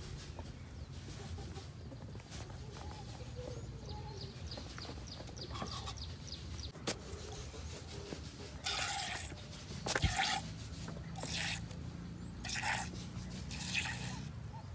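Cow being milked by hand into a small plastic cup: short hissing squirts of milk, about one a second through the second half, over a steady low rumble.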